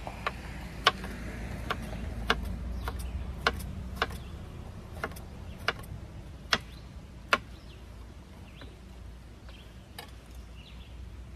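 Chef's knife chopping vegetables on a cutting board: sharp, irregular knocks of the blade hitting the board, about one or two a second for the first seven seconds or so, then a few fainter taps.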